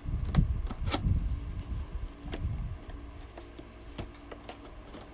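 Cardboard box being handled as fingers pry at its top flap: low rubbing and bumping with three sharp clicks in the first two and a half seconds, then quieter scraping and light ticks.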